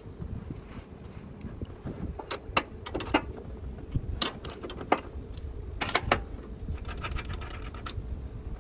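Metal tool clicks and clinks as a socket wrench is worked on the compressor's mounting nuts, with a quick run of ratchet ticks about seven seconds in, over a steady low rumble.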